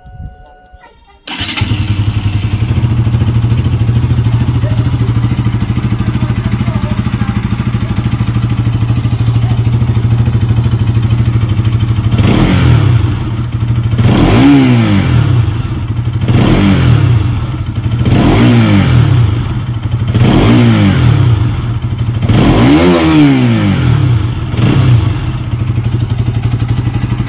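Bajaj Pulsar NS200 BS6's 199.5 cc single-cylinder engine running through its exhaust: it comes in suddenly about a second in and idles steadily. About halfway through it is revved in about seven quick throttle blips, roughly two seconds apart, each rising and falling, then it settles back to idle.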